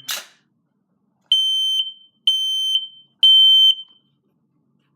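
FireAngel Thermoptek optical smoke alarm sounding, set off by test smoke in its sensing chamber. It gives a loud, high-pitched beep in groups of three, each about half a second long and about a second apart, then pauses before starting again. A brief hiss comes right at the start.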